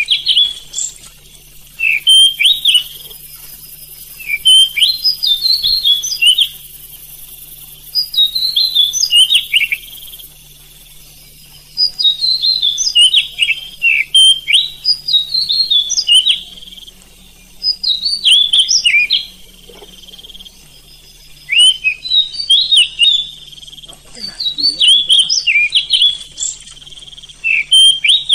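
Oriental magpie-robin (kacer) singing: loud, varied phrases of quick gliding whistles and trills, each a second or two long, repeated about every two to three seconds with short pauses between.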